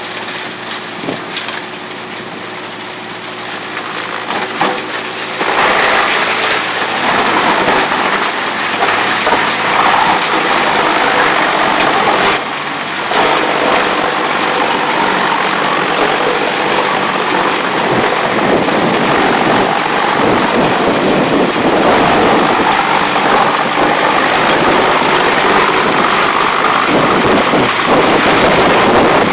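Wood chipper running, its engine humming steadily, then from about five seconds in the loud, continuous grinding and splintering of wood being fed through and shredded, with a brief lull about twelve seconds in.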